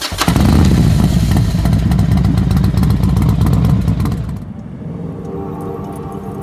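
Motorcycle engine with a loud, deep, uneven rumble. It falls away about four and a half seconds in.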